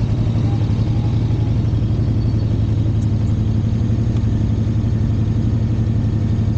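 An engine idling steadily, an even low rumble with a fine regular pulse.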